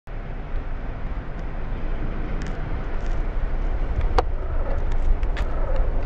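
Steady low outdoor rumble with a few sharp clicks, the loudest about four seconds in.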